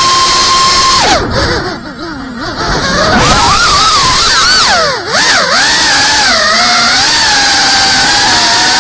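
GEPRC Cinelog 35 cinewhoop drone's brushless motors and propellers whining at a steady pitch. About a second in, the whine falls and fades as the throttle drops. It then comes back with a pitch that swings up and down through quick manoeuvres, with a brief dip near the middle, before settling steady again.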